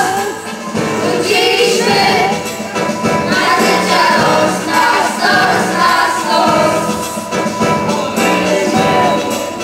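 A choir of children and teenagers singing together.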